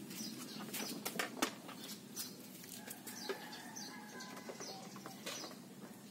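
Scattered light clicks and taps from hands and a screwdriver working the plastic inner fairing of a Honda Wave 125 loose, over a low steady background hum.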